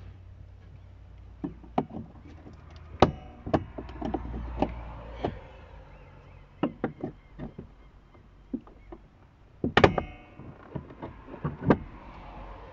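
Scattered clicks and knocks of a hand tool undoing the screws under a VW Passat B6 door trim panel, plastic and metal tapping irregularly. The loudest knocks come about three seconds in and again near ten seconds.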